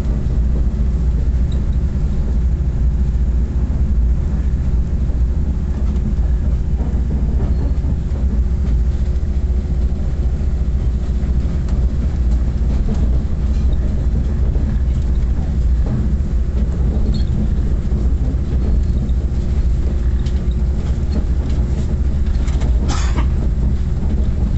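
Passenger train running on the rails, heard from inside the car: a steady low rumble of wheels and carriage. A brief high squeal sounds near the end.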